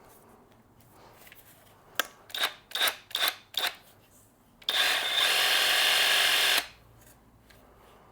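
A few short clacks, then a DeWalt DCS334 cordless brushless jigsaw running with no blade fitted for about two seconds, a steady even buzz that cuts off suddenly.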